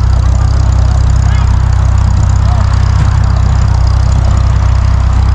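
An engine idling: a loud, steady low rumble that holds unchanged throughout.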